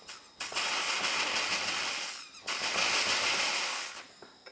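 A jeweller's gas torch hissing in two long blasts with a short break between, heating the metal piece to flow the solder.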